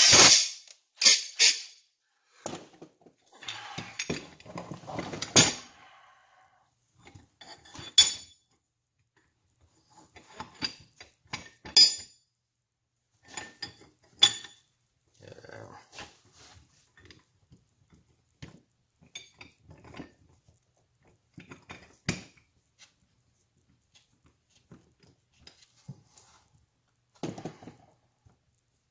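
Irregular metal clinks, taps and clatters of engine parts being handled and fitted as a 110cc engine's bottom end is reassembled. The loudest come in the first couple of seconds and about 8, 12 and 22 seconds in.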